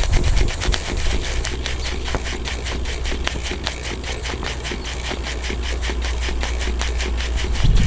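RETROL model steam beam engine running under steam: a fast, even beat of short clicks from the cylinder exhaust and linkage. A steady low rumble runs underneath.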